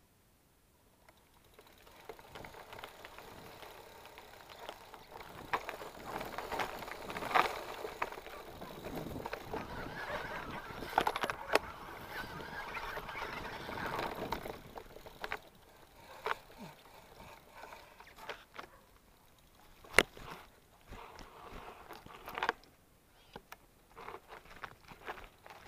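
Mountain bike rolling along a dirt singletrack: after a quiet start, a steady rustle of tyres and tall grass brushing against the bike, with scattered clicks. The second half turns sparser, with sharp clicks and knocks as the bike rattles over the forest trail.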